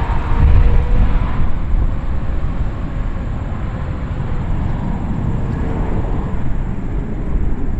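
Jet airliner passing and moving away: its engine whine fades over the first two seconds, leaving a steady low rumble.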